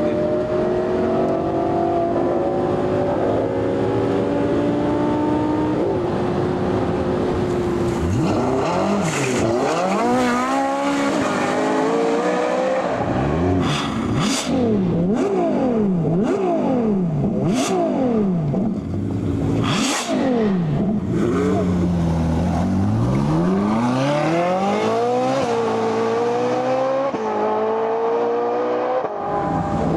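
Supercar engine running steadily, then revved hard over and over, the pitch shooting up and dropping about once a second, with a few sharp exhaust cracks among the revs; it settles to a steadier tone near the end.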